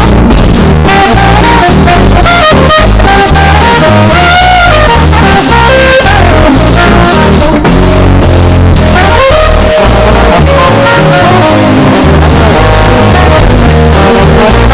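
Loud background music with drums, guitar and brass playing with a steady beat.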